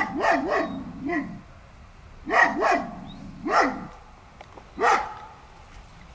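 Young Central Asian Shepherd dogs barking at someone beyond the fence: about eight loud barks in short runs, three in quick succession at the start, then pairs and single barks spaced a second or so apart.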